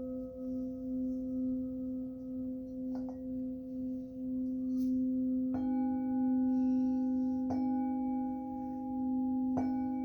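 A singing bowl ringing with a sustained, pulsing low tone, struck again three times in the second half, each strike adding brighter overtones over the hum.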